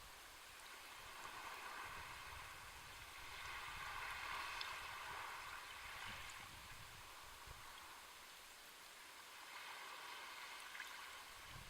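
Sea waves washing onto a shore: a steady hiss of surf that swells to a peak about four to five seconds in, eases off, and builds again near the end.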